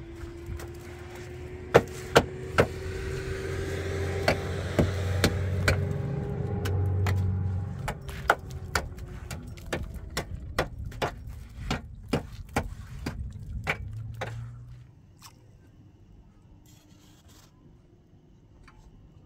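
A motor running, its pitch slowly rising and then falling, under a run of sharp metallic knocks and clanks that stop about fourteen seconds in, leaving only faint background noise.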